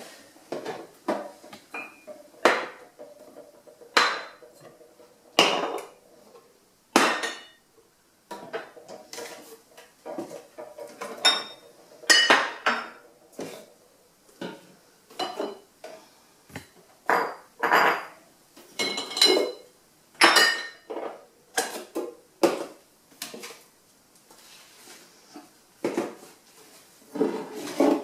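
Glass bottles being lifted out of a kitchen cupboard one after another and set down on a hard surface: a long run of irregular clinks and knocks, some with a brief glassy ring.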